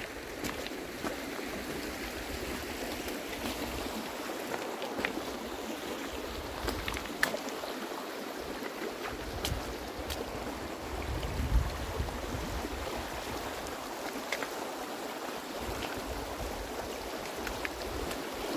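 A fast-flowing mountain river rushing steadily over stones, its current strong. Scattered small clicks and a low thump about halfway through are heard over it.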